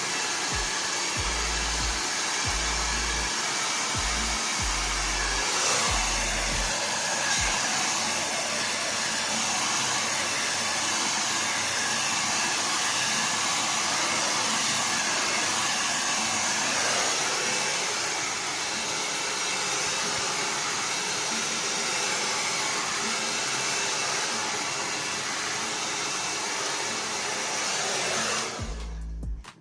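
Handheld hair dryer blowing steadily, switched off about a second before the end.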